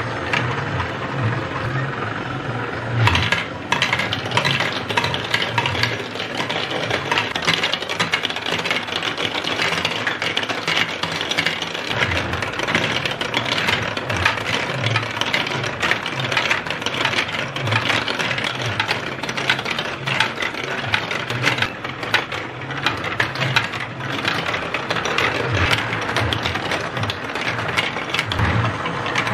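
Plastic balls clattering and rolling along plastic building-block marble-run tracks and stair steps, with a continuous patter of small clicks. Under it runs the whir of motorized spiral and wheel elevators lifting the balls.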